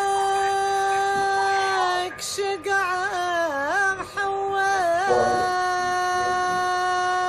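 Background music with a solo voice singing long held notes. In the middle the voice dips and turns through quick ornaments, then settles into a long held note for the last couple of seconds.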